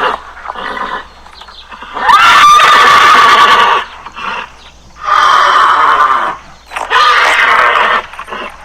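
Horse whinnying: three long calls in a row, the first opening with a short rise in pitch.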